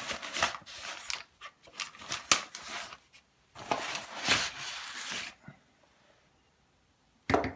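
Rustling and rubbing of a padded fabric tripod carrying bag being handled, with scattered clicks, then a longer stretch of rustling midway. It goes nearly silent for about two seconds near the end.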